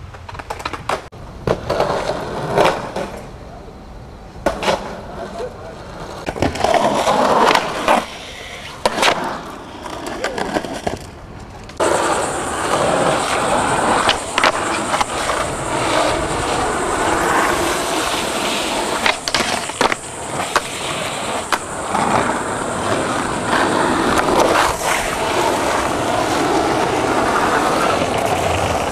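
Skateboard wheels rolling on concrete, with sharp clacks of boards popping and landing. Through the second half the rolling runs on steadily.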